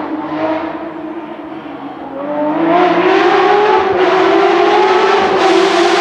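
Porsche 911 rally car's flat-six engine revving hard under acceleration. Its pitch climbs from about two seconds in, then holds high and louder.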